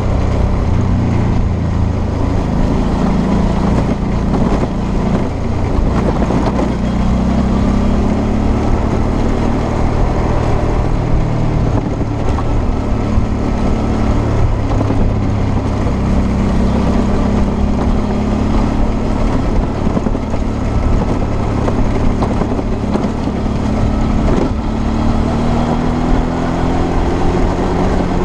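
Suzuki V-Strom 650's 645 cc V-twin engine running under way on a gravel track, its pitch slowly rising and falling with the throttle, under a steady rush of wind and road noise.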